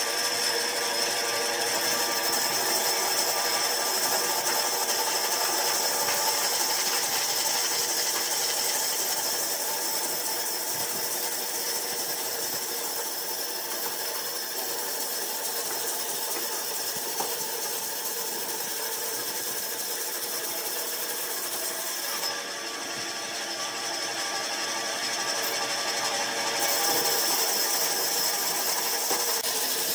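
Band saw running and cutting through a thick wooden block: a steady motor hum under the rasp of the blade in the wood. It dips a little about two-thirds of the way through, then comes back up.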